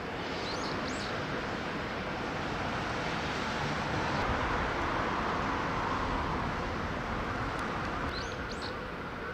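Distant welding noise carrying across a shipyard drydock: a steady hiss that swells around the middle. A small bird chirps briefly near the start and again near the end.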